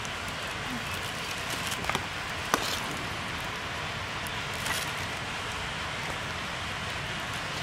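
Steady outdoor hiss, with a few brief clinks and crinkles as rice is scooped with a steel spoon out of a foil packet and tipped into a steel pot; the sharpest clink comes about two and a half seconds in.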